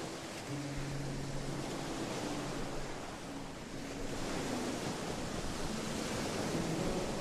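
Sea surf washing onto a sandy beach: a steady rush of breaking waves that eases slightly a little past the middle and swells again. Faint sustained musical tones sit beneath it.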